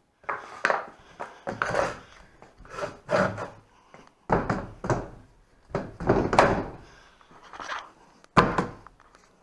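Wooden prop board being handled and set in place as a safety stop for a hydraulic snowmobile elevator: a string of wooden knocks and rubs about once a second, with heavier thuds a little past four seconds in and again near the end.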